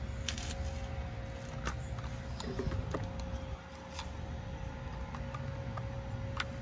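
Light handling noise: a few scattered clicks and knocks over a low background rumble and a faint steady hum.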